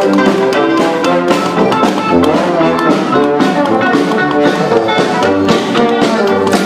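A live band playing an upbeat jazz tune on brass and drums, with a steady beat.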